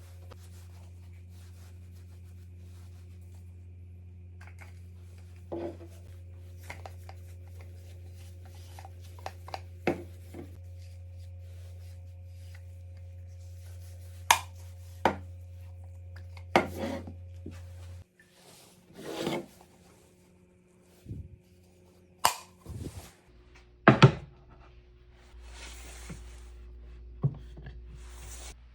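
Wooden pieces being handled and worked by hand: scattered sharp knocks and short scraping or rubbing strokes. A steady low hum runs underneath and stops about two-thirds of the way through.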